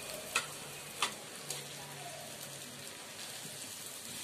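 Oil sizzling steadily in a kadhai as a batter-coated bread and potato patty shallow-fries, with two sharp clicks about half a second and a second in. The sizzle starts to swell at the very end as another batter-dipped patty is lowered into the hot oil.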